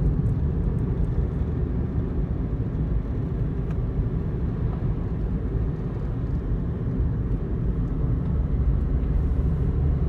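Car driving at road speed, heard from inside the cabin: a steady low rumble of tyres on asphalt and engine.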